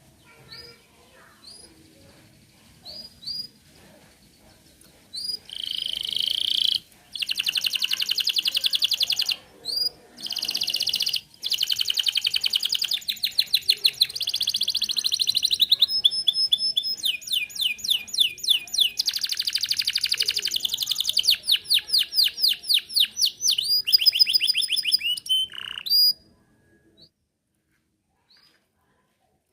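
Domestic canary singing: a few short chirps, then from about five seconds in a long, loud song of fast rolling trills and repeated sweeping phrases, which stops a few seconds before the end, leaving only faint chirps.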